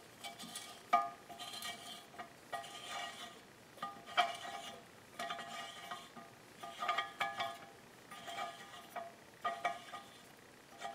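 Oversized thread tap being turned back out of a freshly tapped blind hole in an aluminum intake manifold by hand with a T-handle tool: quiet metallic clicks and scraping with a brief ring, in short bursts about once a second as the handle is turned in strokes.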